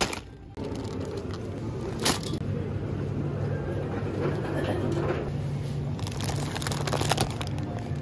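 Supermarket background with a steady low hum. Sharp plastic-packaging crackles come as a packet drops into a plastic shopping basket at the start, with more crinkles about two seconds in and again later on.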